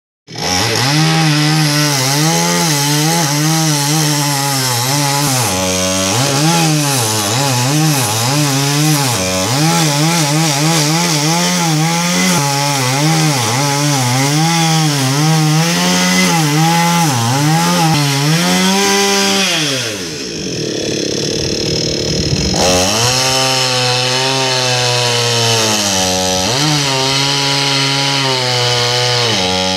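Electric saw cutting neem tree wood, its motor pitch rising and falling over and over as it cuts. About twenty seconds in the motor winds down, and it runs again a couple of seconds later.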